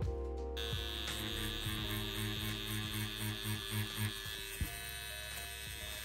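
Hummingbird Bronc V1 wireless rotary tattoo pen, driven by a Maxon motor, running with a steady whine during mag shading on silicone practice skin. It comes in about half a second in, over background music with a regular beat.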